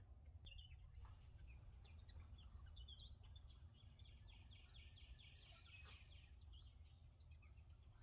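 Faint bird chirps, with a rapid trill of repeated notes in the middle, over a steady low background hum.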